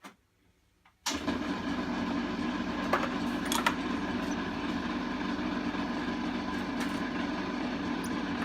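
A machine's motor switches on abruptly about a second in and runs steadily with a constant hum and whine, with a few light clicks over it.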